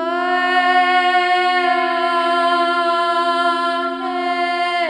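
A voice in sound-healing toning, holding one long sung note over a steady low drone. The note shifts slightly about four seconds in, and the next note starts just after it ends.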